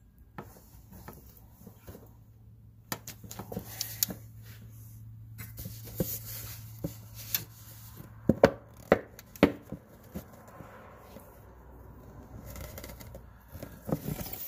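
Irregular clicks, taps and knocks from handling, over a low steady hum; a cluster of louder knocks comes about eight to nine and a half seconds in.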